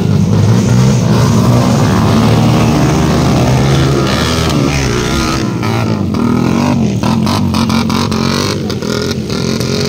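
Several motocross dirt bike engines revving hard as the bikes labour through deep mud, their pitch rising and falling with the throttle and the sounds overlapping.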